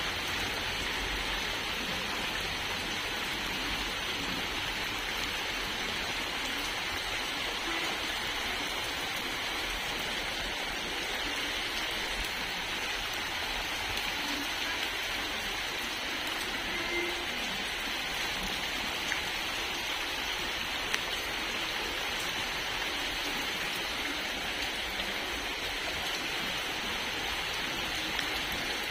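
Rain falling steadily, an even continuous hiss, with a few louder single ticks of drops now and then.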